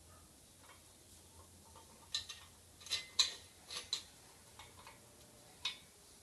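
Steel parts of a stand bracket being handled and fitted together by hand, giving a scattered, irregular series of sharp metal clinks and clicks, loudest about three seconds in.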